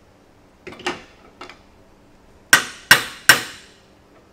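A few light metallic clicks, then three sharp metal-on-metal strikes about a third of a second apart, each ringing briefly.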